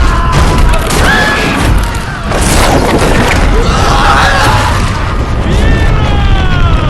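Action-film sound mix: deep booming and crashing under orchestral music, with voices crying out.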